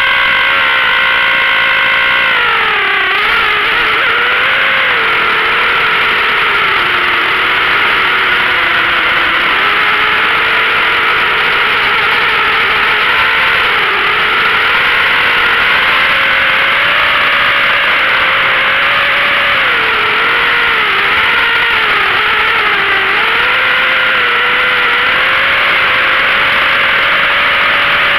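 ZMR 250 FPV racing quadcopter's brushless motors and propellers whining without a break, the pitch dipping and rising again and again with throttle changes. Heard up close from the camera on board.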